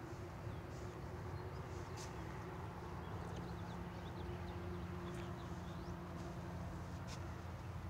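Quiet outdoor ambience: small birds chirping lightly over a steady low hum, with a couple of brief soft clicks.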